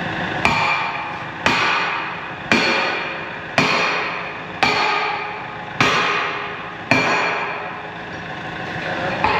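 Heavy hammer blows on a seized steel pin in a bulldozer blade, being driven out: eight strikes about one a second, with a longer gap before the last. Each blow rings off the metal.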